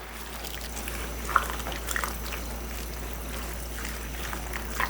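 Pot of coconut curry broth simmering and bubbling, a steady hiss with a few small pops, as it comes back toward the boil with the vegetables just added.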